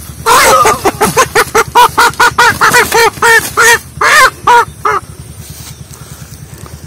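A rooster squawking as it is grabbed and picked up: a rapid run of loud, harsh calls, about three a second, for nearly five seconds, then stopping abruptly.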